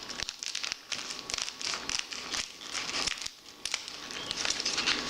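Plastic candy-kit packaging being torn open and crinkled by hand: an irregular run of sharp crackles and rustles.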